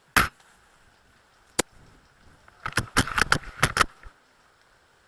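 Airsoft spring bolt-action sniper rifle: a single sharp click a bit over a second in, then a quick run of metallic clicks and rattles around the middle, typical of the bolt being worked and handled.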